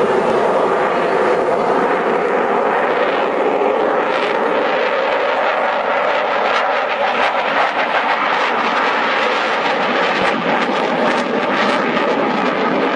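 F-22A Raptor stealth fighter's twin Pratt & Whitney F119 turbofan jet engines, a loud, steady rushing jet noise as the fighter flies past.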